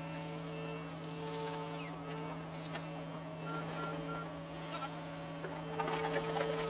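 John Deere 75 excavator working: a steady engine hum with a higher hydraulic whine that comes and goes, and scattered small knocks and scrapes that grow busier near the end.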